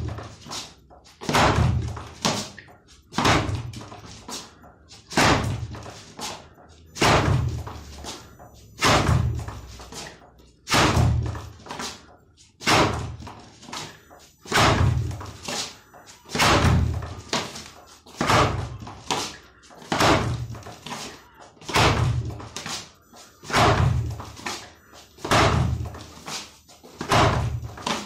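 Bare-fist kizami zuki jab punches striking a wall-mounted wooden makiwara striking post: a hard knock about every two seconds, each with a short ringing tail.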